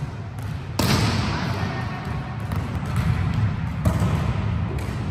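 Volleyballs being hit and bouncing in a sports hall: a sharp smack about a second in and another near four seconds, each ringing on in the hall's echo, over a steady low rumble.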